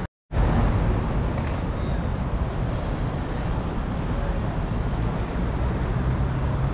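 Steady road-traffic noise of a busy city square, mixed with wind rumbling on the microphone. The sound drops out for a split second at the very start.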